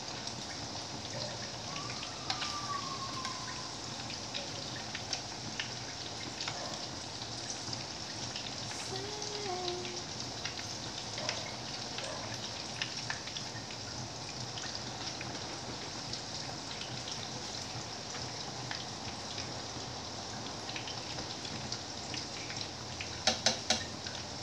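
Pork meat patties frying in oil in a pan: a steady sizzle with frequent small crackles and pops. Near the end comes a quick run of sharp clicks from the metal tongs on the pan.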